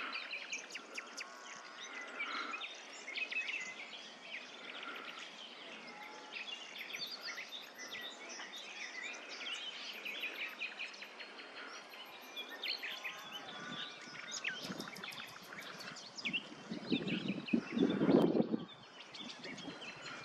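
Several wild birds chirping and singing in short, overlapping phrases, with runs of very high, thin pips. Near the end a brief, louder rush of low noise rises and cuts off.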